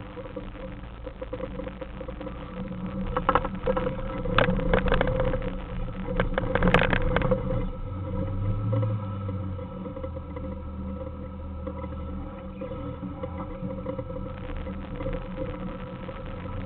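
Suzuki Samurai's four-cylinder engine running steadily at low speed as the truck crawls over rock, with a cluster of knocks and rattles from about three to seven seconds in, then a smoother steady drone.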